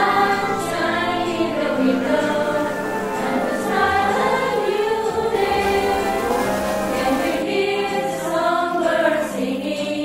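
Music with a choir singing.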